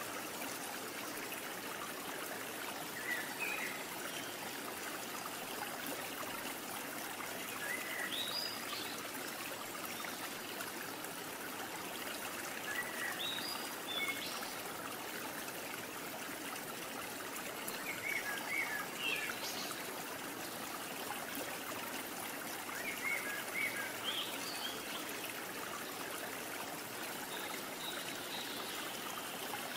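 Steady running-water ambience like a trickling stream, with short high chirps every few seconds.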